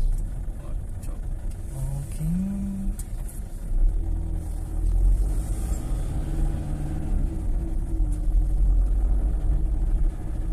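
Engine and road noise of a car driving slowly, heard from inside the cabin as a steady low rumble. A short tone rises in pitch about two seconds in.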